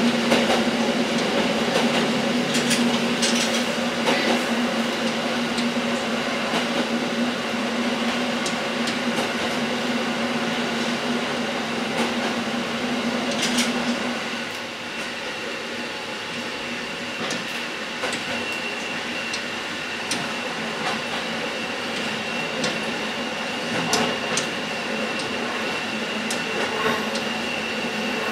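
KiHa 11 diesel railcar under way, heard from inside: a steady engine drone that drops out about halfway through, leaving the rumble of wheels on rail with scattered clicks over rail joints.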